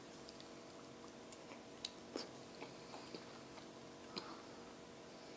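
Quiet chewing of soft ripe papaya, with a few soft clicks as a spoon scoops flesh from a halved papaya, over a faint steady hum.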